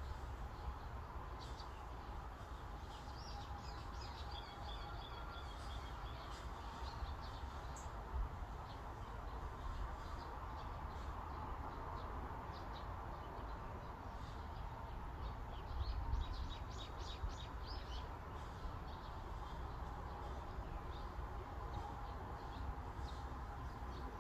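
Forest ambience: small birds chirping and twittering over a steady breeze, with a quick run of high chirps about two-thirds of the way through.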